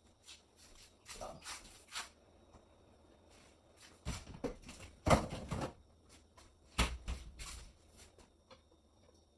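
Kitchen handling sounds: scattered knocks, taps and rustling of things being picked up and set down. The sharpest knocks come about five and seven seconds in.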